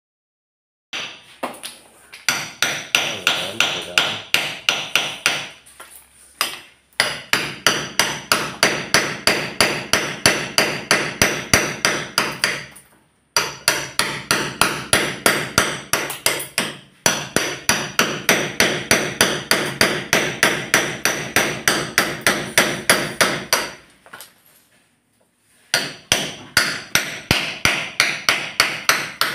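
Hammer striking a chisel held against a door frame, in quick, even blows of about three a second. Each blow rings with a metallic tone. The blows come in runs broken by a few short pauses.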